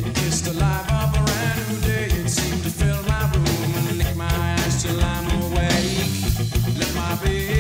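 Rock band recording playing steadily, with electric guitar, bass and drum kit.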